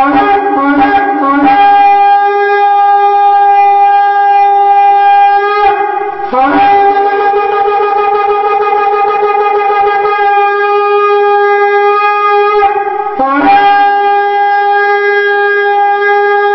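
Three long, loud shofar blasts, each opening with a brief wavering rise before settling on a held note: the trumpet call announcing the rapture.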